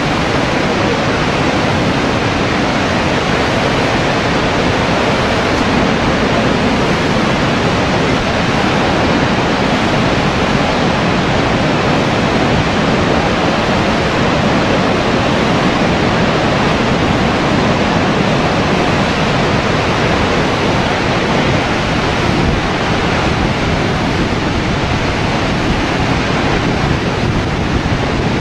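Horseshoe Falls thundering: the steady, unbroken rush of a huge waterfall, loud and constant, with some wind buffeting the microphone.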